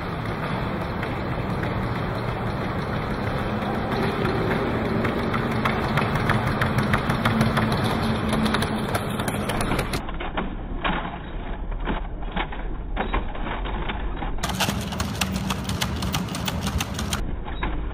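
MIT cheetah quadruped robot running: a fast clatter of its feet striking the floor over the hum of its electric motors, which swells as it reaches and clears a hurdle. Several clips are cut together, so the sound changes abruptly twice.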